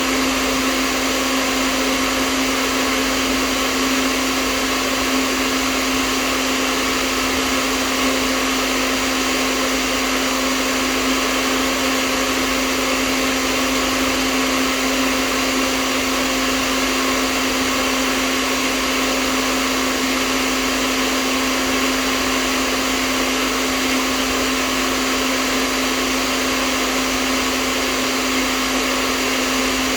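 Hair dryer running steadily: an even rush of blown air over a steady motor hum, unchanging throughout.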